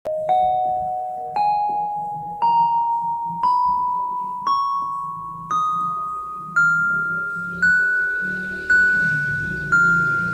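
Yamaha PSR-32 electronic keyboard playing a scale one note at a time, about a note a second, each note struck and fading. The notes climb step by step and start coming back down near the end.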